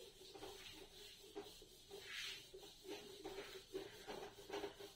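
A whiteboard duster wiping a marker diagram off a whiteboard: a run of faint, short rubbing strokes, with a faint hum underneath.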